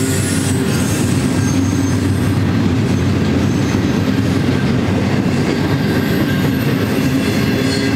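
Double-stack intermodal well cars rolling past at track side, a loud steady noise of steel wheels on rail. A faint high-pitched wheel squeal comes and goes.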